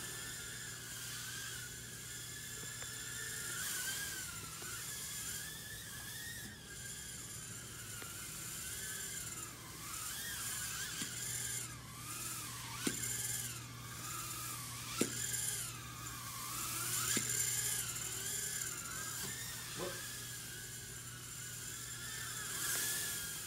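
Blade Inductrix Switch micro quadcopter's ducted fans whining in flight, the pitch wavering up and down with the throttle. A few short sharp clicks come through in the middle.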